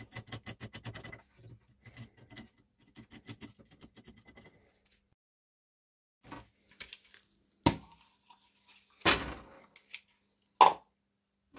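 Metal tool working at the mouth of a rusted steel bayonet scabbard, trying to open a gap for penetrating oil where the blade is rusted fast. A run of faint quick ticks for the first few seconds, then separate knocks and a scrape, and near the end a sharp ringing clink of metal on metal.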